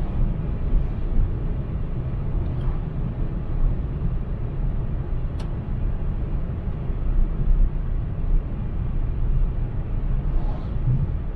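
Steady in-cabin road and engine rumble of an Opel Corsa driving at road speed, with a single sharp tick about five seconds in and a faint swish as an oncoming lorry passes near the end.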